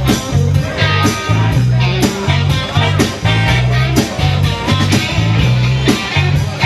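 Band playing a blues-rock instrumental passage: electric guitar over a walking bass line and drums keeping a steady beat of about two hits a second, with no singing.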